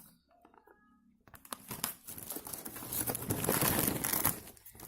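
Plastic snack packet crinkling and rustling as it is handled. It starts quietly about a second and a half in and grows denser and louder.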